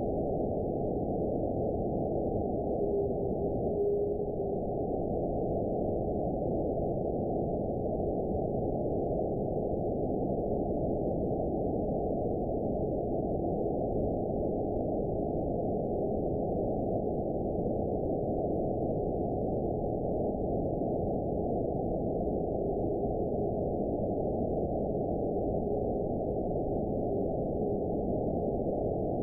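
Radio receiver static, a steady hiss with the top end cut off, carrying a faint steady whistle that swells briefly about three to four seconds in. The whistle is the carrier of a distant TV station heard by meteor-scatter reflection.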